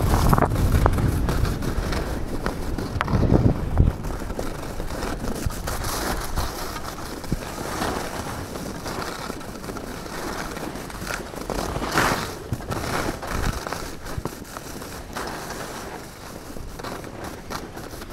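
Skis scraping and hissing over packed snow on a downhill run, with small crackles from the snow. Wind rumbles on the microphone, heaviest in the first few seconds.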